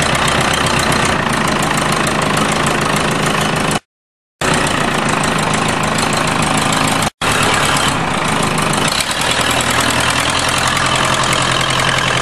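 Front-end loader tractor's engine running steadily close by as the machine moves. The sound cuts out completely twice, for about half a second a little before four seconds in, and for an instant about seven seconds in.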